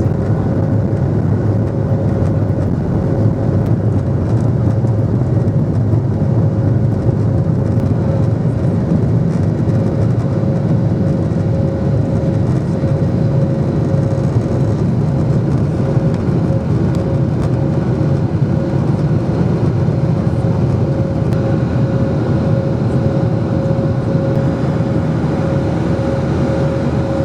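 Boeing 737-800 cabin noise: a steady low rumble of engines and airflow, with a constant thin whine above it.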